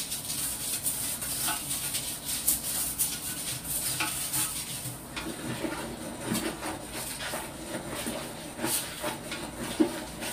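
Toilet brush scrubbing and scraping inside a ceramic toilet bowl in quick, irregular strokes, with a sharper knock near the end.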